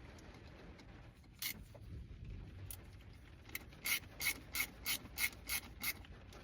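Ratcheting hand tool clicking in an even run of about three clicks a second for a couple of seconds, after two lone clicks, as a screw is worked in.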